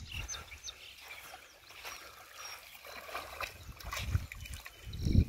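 A hooked fish splashing at the surface of shallow lake water as it is reeled in toward the shore, with low rumbling swells about four seconds in and again near the end.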